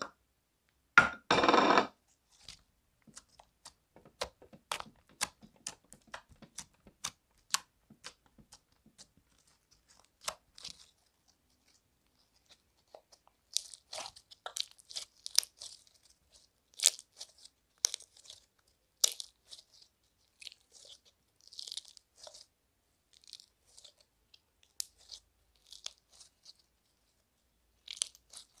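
Hands kneading and squeezing slime mixed with small foam beads: a run of sharp clicks and crackly pops as the slime is pressed and pulled. A louder, brief rubbing noise comes about a second in.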